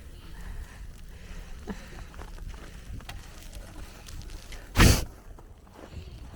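Low rumble of wind on the microphone, with one brief loud knock just under five seconds in.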